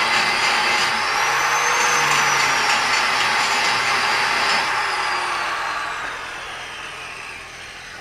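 Angle grinder with a hard grinding disc grinding edge-on into a 4140 steel die block: a steady high motor whine over a grinding hiss. A little past halfway the whine starts to fall and fade as the disc spins down.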